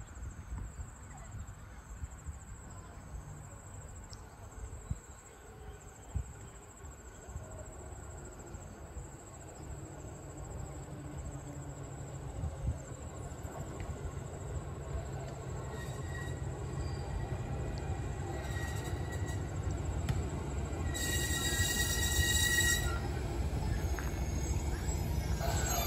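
JR 211-series electric commuter train running in along the platform track, its low rumble of wheels and motors growing steadily louder as it draws near. About three-quarters of the way through there is a brief high hiss.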